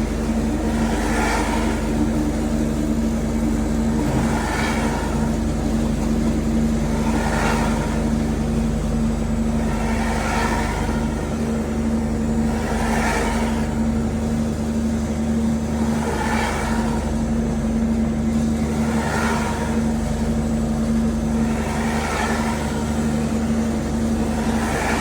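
CNC foam-carving machine running, with a steady motor hum and a higher swelling sound that comes back about every three seconds as it cuts passes through the foam.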